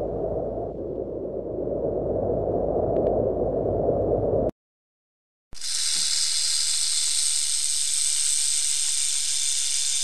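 Snake hissing: a steady, high hiss that starts about five and a half seconds in, after a second of silence. Before the gap, a low, rough, steady noise.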